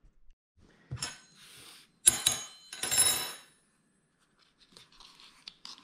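Metal utensil clinking against hard tableware: three short clinks with a brief high ring, about one, two and three seconds in, then faint handling noise near the end.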